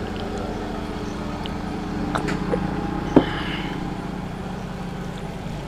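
A steady low mechanical hum that eases off near the end, with a few small clicks and one sharp tick about three seconds in.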